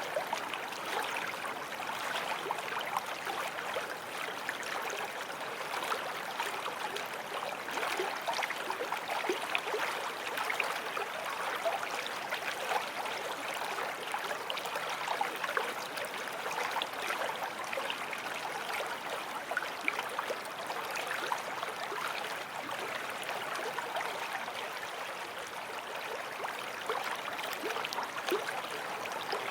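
Forest stream flowing over stones, a steady rushing babble full of small splashes and gurgles.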